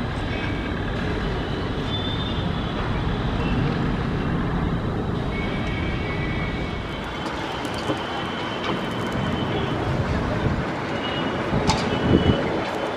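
Steady outdoor roar of distant engines and traffic, with a few sharp knocks near the end.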